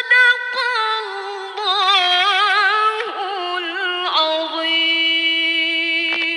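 Female Qur'an reciter (qariah) chanting tilawah in a high, melodious voice: a long melismatic phrase with rapid wavering ornaments, settling into a steady held note that stops abruptly near the end.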